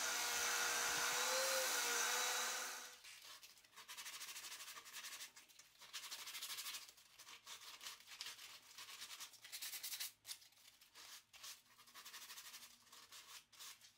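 A portable oscillating sander, clamped upside down, runs steadily with a hum as a board's curved edge is sanded against its spindle, then stops about three seconds in. After that, sandpaper is rubbed by hand against the curved wooden cutout in short, irregular scratchy strokes.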